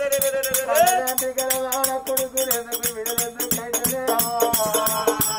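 Telugu Oggu Katha folk singing: one voice holds long, slightly wavering notes, sliding up in pitch about a second in, over a steady rhythm of clicking percussion from the troupe's drum and small instruments.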